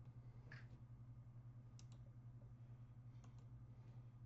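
Near silence: a steady low electrical hum with a few faint, short clicks.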